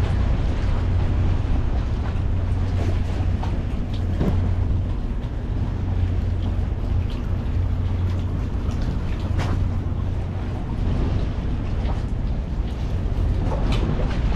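Steady low rumble of wind buffeting the microphone over choppy water, with water lapping around the boat and a few light knocks.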